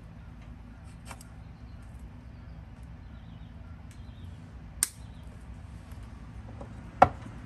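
Diagonal cutters snipping the tails off nylon zip ties: three sharp snaps, a faint one about a second in, a loud one about five seconds in and the loudest near the end, over a steady low hum.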